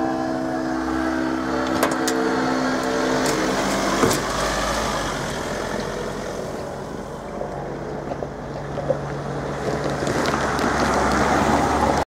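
Road vehicles driving over a level crossing as it reopens, with a steady pitched hum that fades out about three seconds in and a single thump about four seconds in. Engine and tyre noise grows near the end as a vehicle passes close.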